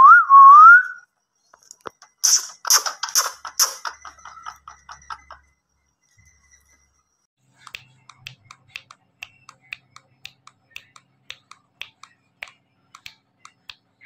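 Indian ringneck parrot giving a loud whistle that rises and falls, then four loud sharp calls about two seconds in. From about eight seconds a steady run of light taps on the hard floor follows, roughly three a second.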